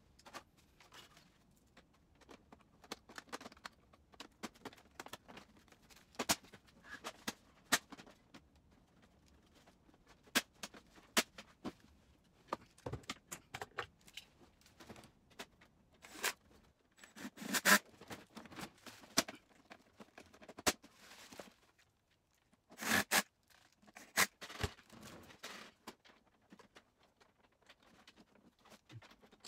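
Quick irregular plastic clicks, knocks and scraping as an HP OfficeJet Pro 8710 printer's housing and parts are handled and snapped shut, played at four times speed. There are denser bursts of handling about halfway through and again a few seconds later.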